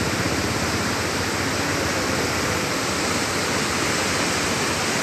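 A river in flood, swollen with muddy water, running fast: a steady, loud rush of water.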